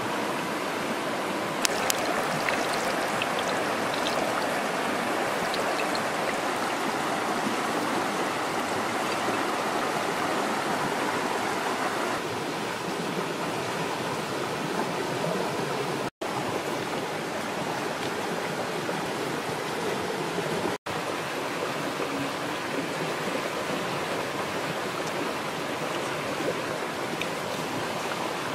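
Shallow stream rushing steadily over rocks. A few sharp clicks sound about two seconds in, and the sound cuts out for an instant twice.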